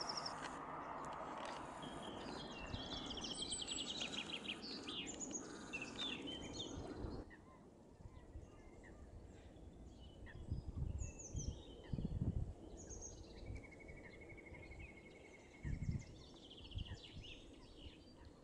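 Small birds chirping and singing over a steady hiss that cuts off abruptly about seven seconds in. Afterwards it is quieter, with scattered chirps, a trill of about two seconds near the end, and a few brief low rumbles.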